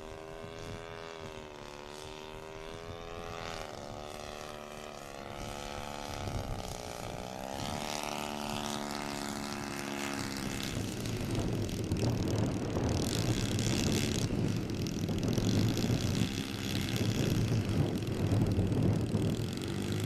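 Radio-control model airplane engine and propeller in flight, its pitch rising and falling as the throttle changes. About halfway through the sound turns louder and rougher, with a low rumble, as the plane comes in low over the grass to land.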